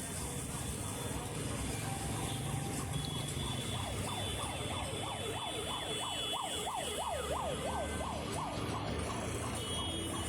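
Electronic siren sweeping quickly up and down in pitch, about two to three sweeps a second, starting about four seconds in over a steady low rumble.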